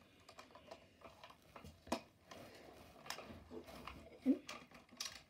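Faint, scattered clicks and scrapes of hard plastic as the coin-bank compartment of a 1990 Servco toy fire truck is worked at by hand to open it.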